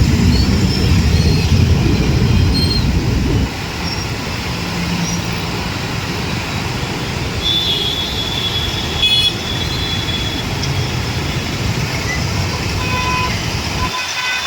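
Steady road traffic noise with short vehicle horn toots, the clearest horn a little past the middle. The traffic is louder for the first few seconds.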